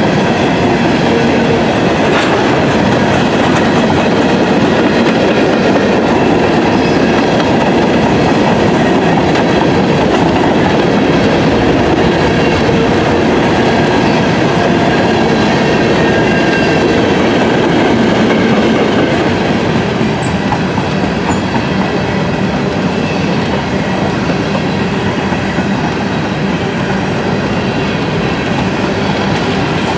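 Loud, steady rush of a freight train's cars rolling past on the rails, with faint high whining tones from the wheels. It eases off a little about two-thirds of the way through.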